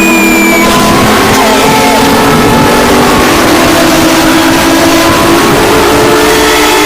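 Loud, distorted emergency alarm: several steady tones sound together over harsh noise, with a brief falling tone at the very start.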